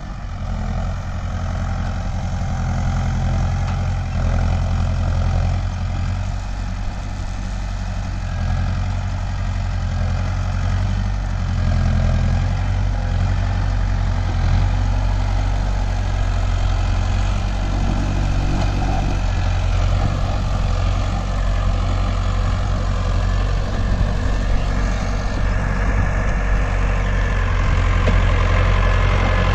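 Mahindra Arjun Novo 655 tractor's diesel engine running steadily while it works a mounted reversible mouldboard plough.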